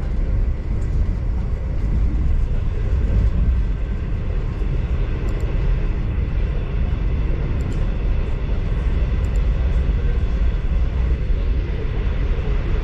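V/Line passenger train running steadily, heard from inside the carriage as a deep, even rumble with a few faint steady high tones over it.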